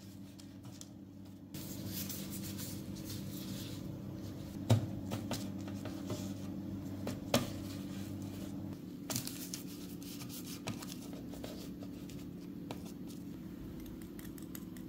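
Dough pieces being set down on a parchment-lined metal baking tray: soft rustling of the baking paper and plastic gloves, with a few sharp knocks on the tray, the loudest about five seconds in. A steady low hum runs underneath.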